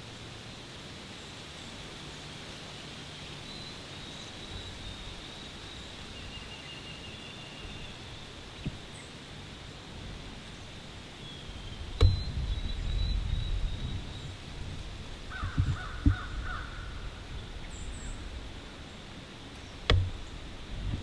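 Open-air ambience with a few short, high, thin calls. About halfway through, a sharp snap is followed by a few seconds of low rustling and thumping with another call, and a second sharp knock with a thump comes near the end.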